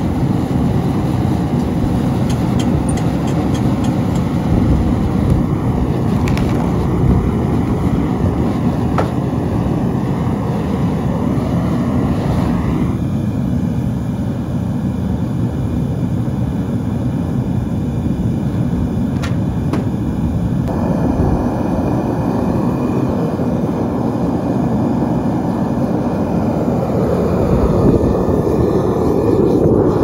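Propane burner of a Devil Forge melting furnace running steadily at full heat, a loud even rush of gas flame. Its sound dulls a little about thirteen seconds in and fills out again around twenty-one seconds.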